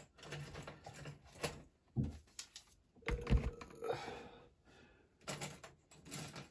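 Scattered clicks and knocks of objects being handled and set down on a workbench, with one heavier thud about three seconds in.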